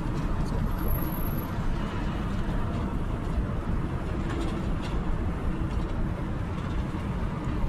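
Steady low rumble of road and engine noise from a car in traffic, heard from inside the cabin.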